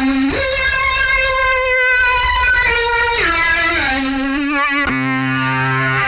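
Distorted, guitar-like synth lead from an Xfer Serum 2 preset playing held notes that glide in pitch from one to the next, with a wavering vibrato around four seconds in and a lower, fuller note entering just before the end.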